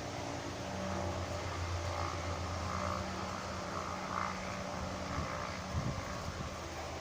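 Wind blowing, with a shell wind chime clinking softly, over a low steady hum.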